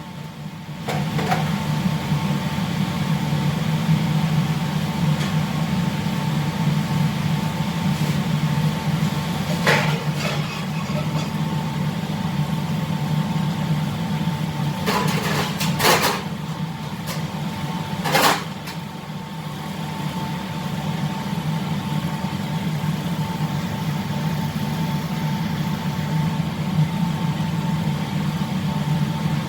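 Steady low droning hum of a ship's engines and machinery, with a faint steady whine over it. A few short clatters of kitchen utensils break through partway along.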